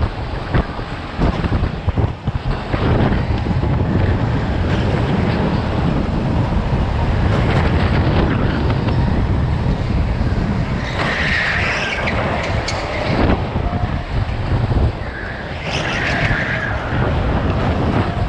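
Onboard sound of an indoor rental go-kart racing at speed: a steady low rumble of the kart running with wind buffeting the microphone. A harsher, higher-pitched noise comes in twice in the second half as it takes corners.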